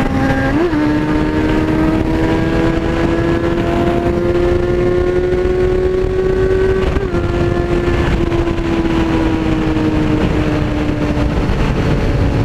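2003 Kawasaki ZX-6R (636) inline-four engine running at high revs at freeway speed, over a steady rush of wind noise. The engine note climbs slowly for about seven seconds, then eases down as the throttle comes off.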